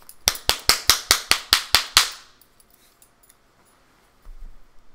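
A quick run of about nine sharp, evenly spaced snaps, about five a second, lasting some two seconds, followed near the end by a soft low thump.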